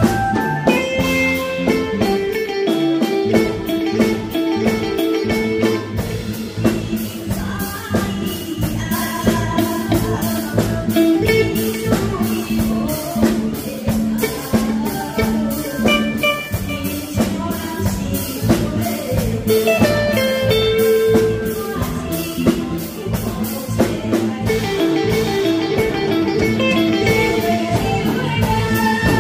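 Live band playing an instrumental passage of a Taiwanese pop song: drum kit keeping a steady beat under electric guitar and keyboard.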